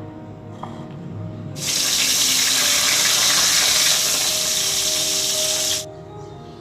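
Water running hard from a kitchen tap into a sink for about four seconds, turned on suddenly and shut off abruptly.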